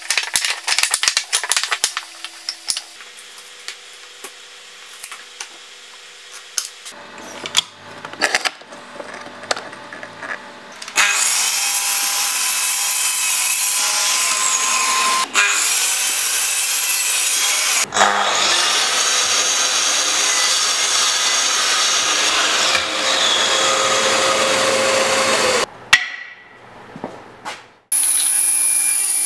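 Oak boards knocked and shuffled on a wooden workbench, then a power saw running and cutting oak, a sliding mitre saw, steady and loud with two brief breaks. Near the end a table saw blade spins with a steady high whine.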